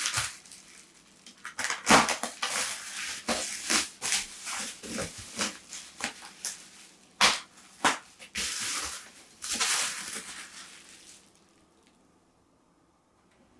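Hands working on parts of a rusted PC-9821An computer: irregular scraping, rustling and sharp clicks that stop near the end.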